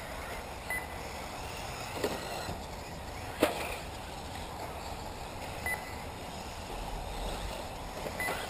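Electric 1/8-scale off-road RC buggies running on the track: a steady hiss of tyres and motors, with a sharp knock about two seconds in and a louder one about three and a half seconds in. Short high beeps sound about a second in, again near six seconds, and near the end, as from the lap-timing system registering cars' transponders.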